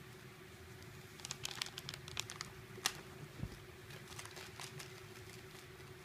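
Crinkling and crackling of a foil potato chip bag as a cat with its head stuck inside it moves and shakes it: a flurry of crackles about a second in, thinning out to scattered ones later.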